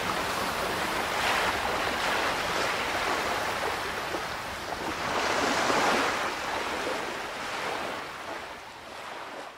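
Sea waves washing in, with two louder swells, one about a second in and one around five to six seconds in, then fading out near the end.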